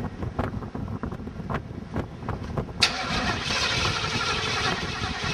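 Chevrolet Monte Carlo SS engine with a Holley 600 carburetor, running with a low uneven rumble and irregular knocks. About three seconds in, a loud hissing rush starts suddenly and stops near the end.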